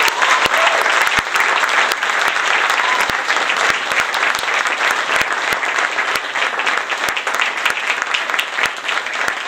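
Audience applauding. The clapping is dense, with a few cheers and whoops in the first second and again about three seconds in, and it eases off slightly toward the end.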